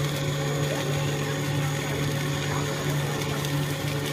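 Puffing snack extruder running steadily: a constant low hum with faint steady higher tones above it.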